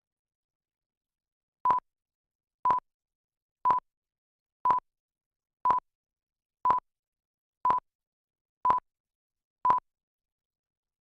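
Nine short electronic test-tone beeps at one steady pitch, one each second, as in a broadcast countdown leader.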